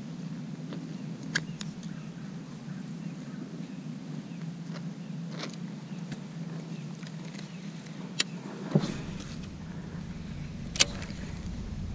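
Steady low hum of a boat motor, with a few sharp clicks and taps scattered through it. A deeper rumble joins about three-quarters of the way through.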